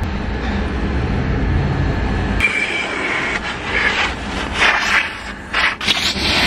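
Car interior road and engine rumble while driving. About two and a half seconds in, it cuts to a car-wash vacuum hose sucking over a fabric car seat, a steady rushing hiss whose tone shifts as the nozzle is pushed across the seat and into the seams to pick up sand and lint.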